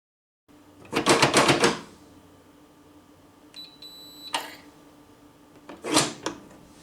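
Day1 biometric safe handled: a quick clatter of mechanical clicks, then a short high electronic beep about three and a half seconds in, followed by a click and a knock near the end.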